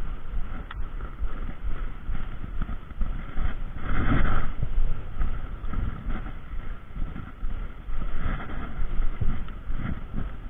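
Wind buffeting the microphone over the steady rush of a fast-flowing river, with a louder gust about four seconds in.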